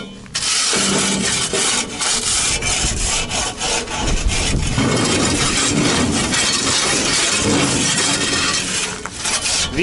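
Steel shovel blades scraping caked soil off the steel floor of a tipped tractor dump trailer, in repeated grating strokes.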